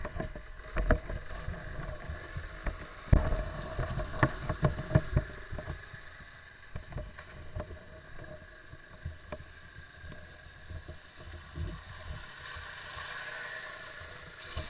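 Quad bike and dirt bike engines running at idle as a steady hum, with a run of sharp knocks and thumps in the first half.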